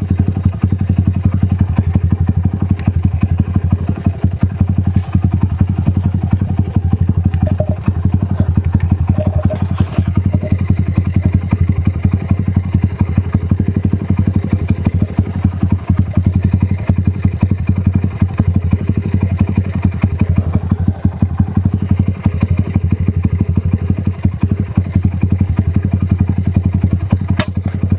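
Dirt bike engine idling steadily close by, with a fast, even firing beat. A couple of sharp clicks come through, one about ten seconds in and one near the end.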